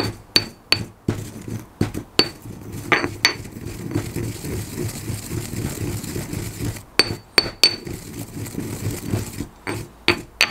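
Stone pestle pounding fennel seeds in a stone mortar: sharp knocks with a ringing clink in quick clusters near the start, about three seconds in, about seven seconds in and near the end. Between them, a stretch of rough grinding as the pestle works the seeds round the bowl, cracking their husks without grinding them fine.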